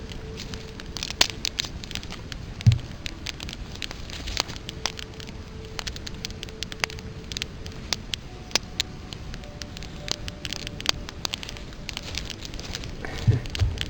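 Wood campfire crackling, with irregular sharp pops and snaps. A dull low thump about three seconds in and two more near the end.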